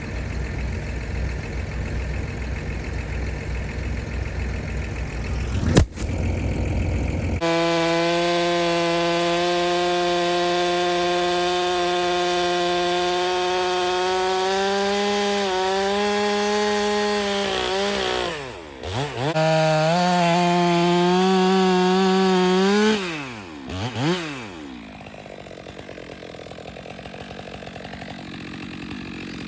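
A low engine rumble, then a sharp click, after which a two-stroke chainsaw starts running at high revs with a steady, high engine note. The revs drop twice as the throttle is let off, rising again in between, and the saw then runs more quietly.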